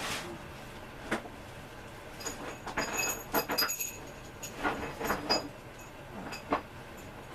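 Loose metal screws clinking and rattling as they are handled and picked through, a series of sharp clinks, some with a short metallic ring, mostly in the middle of the stretch.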